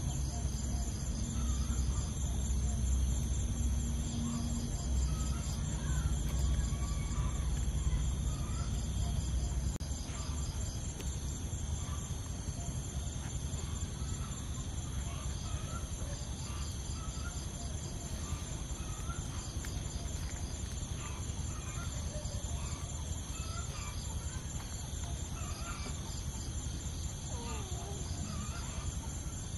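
Steady outdoor insect chorus, a high continuous shrilling, with faint scattered short calls of small animals or birds. A low rumble underneath eases off about a third of the way in.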